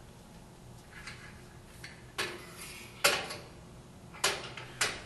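Metallic knocks and clanks as the metal stopping fence rail of a GANNOMAT DB21 dowel boring machine is moved across and set onto the machine's other side: a couple of light ticks, then four sharp clanks, the loudest about three seconds in.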